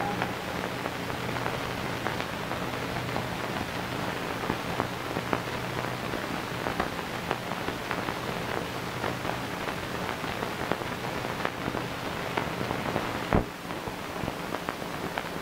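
Surface noise of an old 16mm film soundtrack: steady hiss and a low hum, speckled with many small crackles and pops. About 13 seconds in comes one louder pop, after which the noise is a little quieter.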